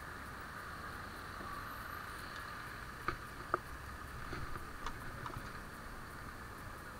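Steady hiss of riding noise from a bicycle moving through city traffic, with two sharp knocks from the bike a little after three seconds in and a few lighter clicks a second or two later.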